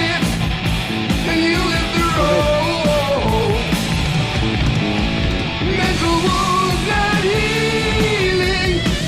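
Rock song with a sung lead vocal over loud distorted guitars and drums.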